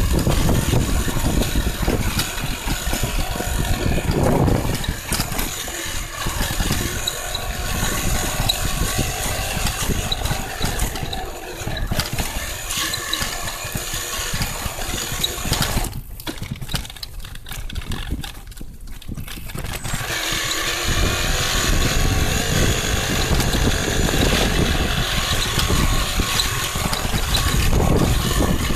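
Electric downhill mountain bike rolling fast down a rough dirt trail: steady rumble and rattle of tyres and frame over the gravel, with wind on the microphone. About halfway through it goes quieter for a few seconds, then picks back up.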